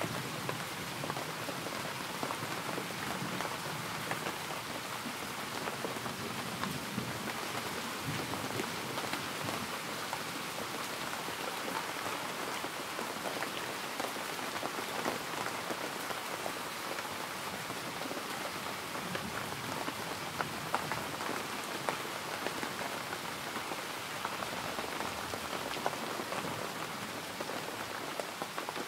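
Steady rain falling on a hard surface, a continuous hiss dotted with many small drop taps.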